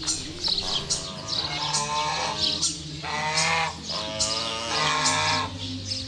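Domestic geese honking, several drawn-out calls one after another.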